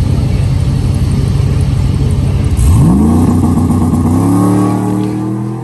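Drag-race launch: engines rumble deeply at the starting line, then about two and a half seconds in an engine revs in a sharp rising sweep and keeps climbing as the vehicle pulls away down the strip. It fades near the end.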